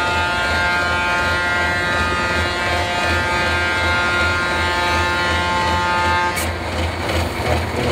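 An air horn held in one long steady multi-tone blast that cuts off about six seconds in, over the low steady running of a truck engine.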